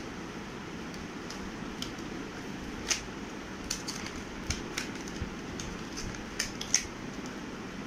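Irregular small clicks and taps of plastic doll parts and accessories being handled and fitted, with the sharpest clicks about three seconds in and near the end, over a steady low background noise.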